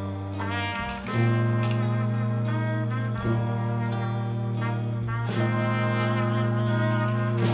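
Background music of long held notes that change every second or so.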